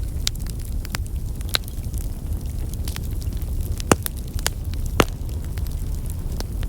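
Fire burning: a steady low rush with scattered sharp crackles and pops, two of them louder about four and five seconds in.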